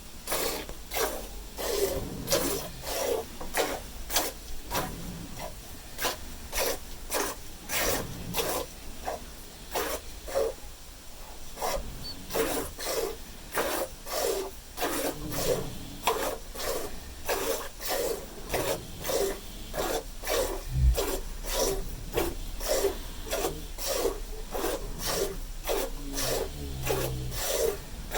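Hand milking: jets of milk squirting into a pail in a steady rhythm of about two squirts a second.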